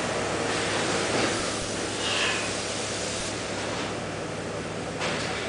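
Steady machinery noise from a car-seat factory production line: a constant rushing hiss over a low hum, with a brief sharper hiss about two seconds in.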